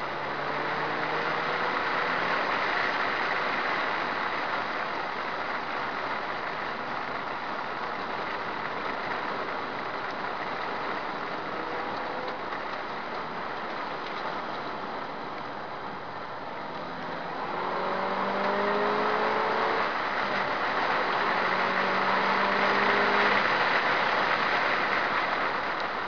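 Subaru Impreza WRX STI S204's turbocharged flat-four engine heard from inside the cabin while lapping a track, under a steady rush of wind and tyre noise. Twice in the second half the engine note climbs as the car accelerates, and the sound grows louder.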